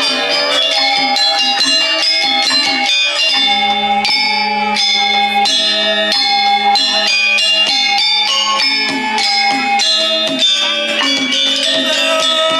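Balinese gamelan music: bronze metallophones struck in quick, dense patterns, their bell-like tones ringing on, with a deeper held tone joining about three seconds in.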